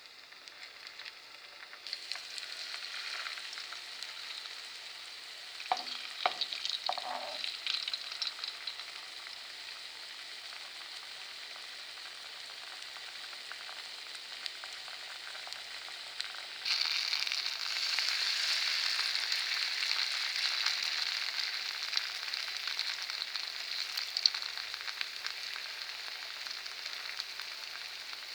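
Cabbage fritters frying in oil in a skillet: a steady sizzle that grows louder about two seconds in and again, more strongly, a little past halfway. A few brief clatters come about six seconds in.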